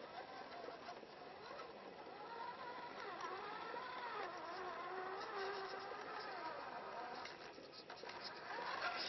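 Electric motor and gear drivetrain of an RC4WD scale Jeep Wrangler rock crawler whining, its pitch wavering up and down with the throttle and growing louder as it nears. A few short clicks near the end.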